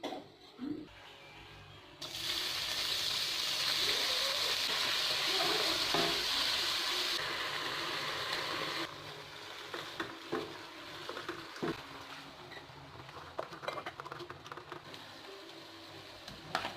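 Food sizzling in a hot frying pan, a steady hiss that sets in about two seconds in and drops off after several seconds, followed by scattered clinks and scrapes of a utensil stirring in the pan.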